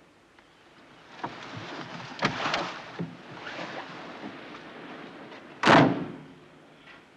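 Car door unlatched and pushed open with a few clicks and knocks, a stretch of rustling as someone climbs out, then the door slammed shut hard about six seconds in.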